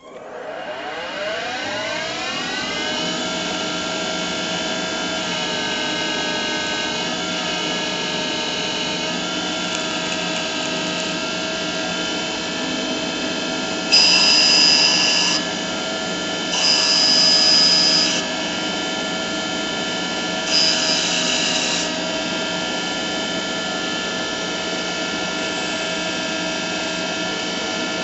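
A machine tool's spindle motor spinning up over about three seconds to a steady whine, then cutting metal three times, each cut lasting a second or two and adding a loud hiss with a high squeal.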